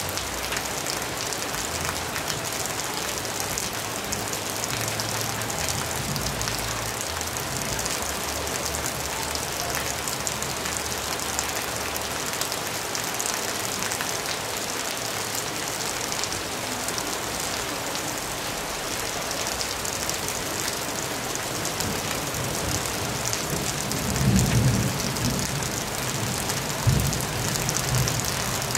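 Heavy rain falling steadily on open water and a dock, a dense hiss. Low rumbles come in near the end.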